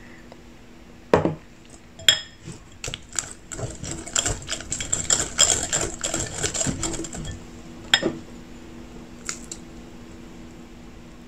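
Wire whisk beating egg into creamed butter and sugar in a bowl: a few seconds of rapid clicking and tapping of the metal wires against the bowl, with separate knocks and clicks before and after. The egg is being added a little at a time, since the mixture separates easily.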